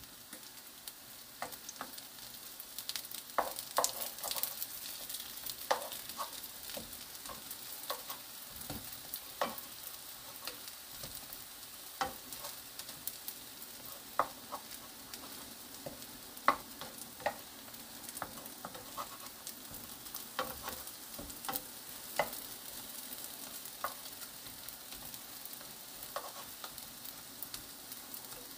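Battered zucchini slices sizzling in oil in a nonstick frying pan, a steady hiss, with scattered sharp clicks and taps as spatulas turn the slices against the pan.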